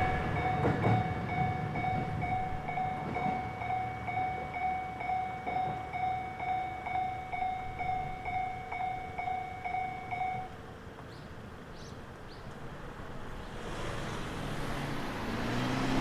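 Japanese level-crossing alarm ringing its steady, rapidly repeated electronic bell, which stops about ten seconds in as the crossing clears. At the start, the rumble of a diesel railcar that has just crossed fades away.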